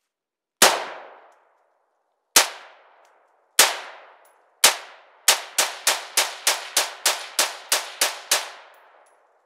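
AR-15 rifle in 5.56/.223 firing. Four single shots come one to two seconds apart, then a quick string of about eleven shots at roughly three a second. Each sharp crack is followed by a short ringing echo.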